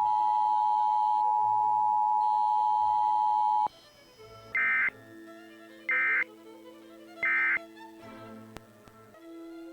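The end of an Emergency Alert System attention tone: a loud, steady tone that cuts off suddenly about four seconds in. Three short bursts of digital data noise follow, about 1.3 s apart, the end-of-message code that closes an EAS test. Faint background music plays underneath.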